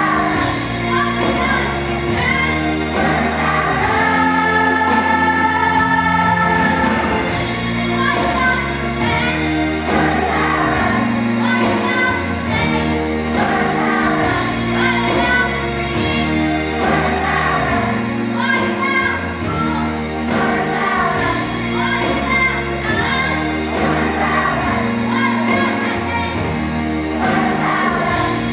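Children's choir singing together over an instrumental accompaniment with a steady bass line.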